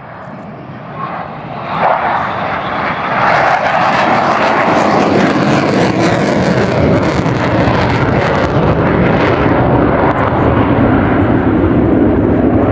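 Sukhoi Su-22 jet's turbojet engine passing low and climbing away. The jet noise swells over the first three seconds, then stays loud, with a crackling, hissing edge through the middle.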